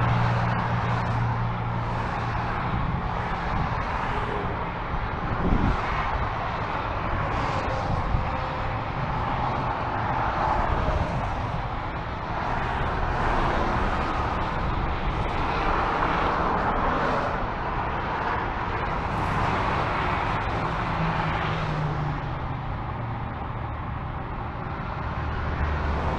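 Steady freeway traffic on a multi-lane interstate: tyre and engine noise of cars and trucks passing below, swelling and fading as vehicles go by, with a low engine hum from heavier vehicles at times and a brief thump about five and a half seconds in.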